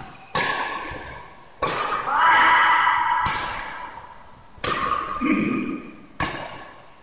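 Badminton rackets striking a shuttlecock in a rally: five sharp cracks, one about every second and a half, each ringing out in the echo of a large hall.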